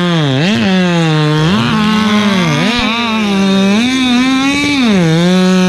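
Racing two-stroke chainsaw at full throttle cutting through a log. Its pitch sags and recovers several times as the chain bogs in the wood and frees up between cuts.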